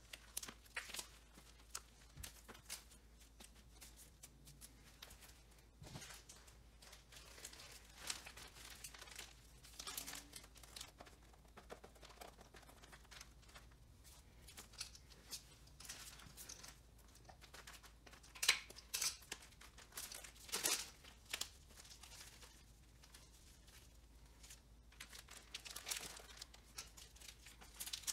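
Clear plastic film crinkling and rustling as hands smooth and handle it, with scattered sharp crackles and a cluster of louder ones about two-thirds of the way through.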